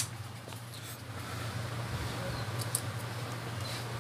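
Quiet workbench room tone: a steady low hum with a few faint clicks, about a second in, near the middle and near the end.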